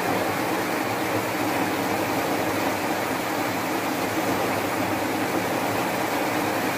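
Heavy rain and strong wind: a steady, even rushing hiss of a downpour.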